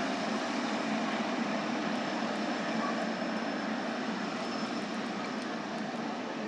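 Boeing 777-300ER's GE90 turbofan engines running at taxi power: a steady jet rush with a faint high whine, easing slightly as the airliner taxis away.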